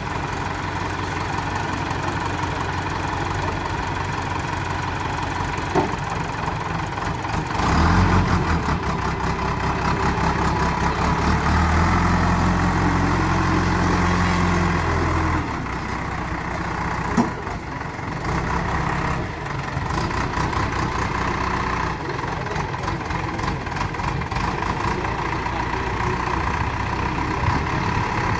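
Diesel engine of a JCB backhoe loader running, revving up harder for several seconds midway as the front loader arm lifts a bucket of logs, then settling back. Two sharp knocks stand out, about six seconds in and again past the middle.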